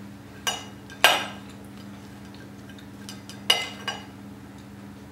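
Knife and fork clinking and scraping on a plate while cutting food: two sharp clinks around half a second and a second in, the second the loudest, and two more about three and a half seconds in. A steady low hum runs underneath.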